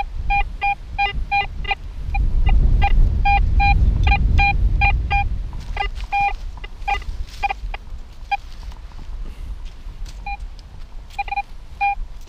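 Handheld metal detector giving rapid, short beeps of one steady pitch, several a second, as its coil sweeps over the ground; the beeps thin out to a few scattered ones after about five seconds. Gusts of wind rumble over the microphone from about two seconds in until about six seconds in.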